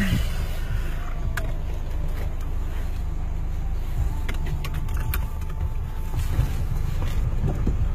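Car with its driver's door open: a steady low rumble of engine and outdoor traffic, with a few light clicks and knocks.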